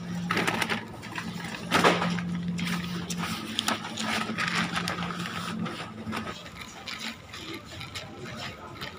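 Steady low hum of a bottle-return machine running, stopping about six seconds in, over the rustle of paper shopping bags being handled, with one louder crinkle or knock about two seconds in.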